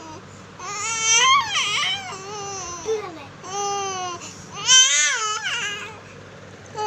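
An infant crying in a string of wailing cries, the loudest about five seconds in.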